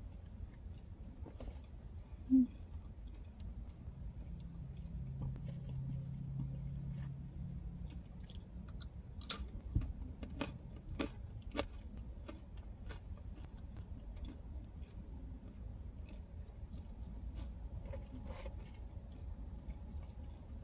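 Close-up chewing and biting of pizza, with scattered crisp crunches and clicks of the crust, thickest around the middle, over a steady low rumble.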